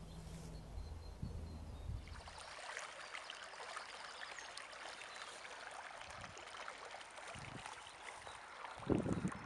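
A stream running, a steady babble of moving water. It takes over about two seconds in, after a low steady hum, and a louder low thump comes near the end.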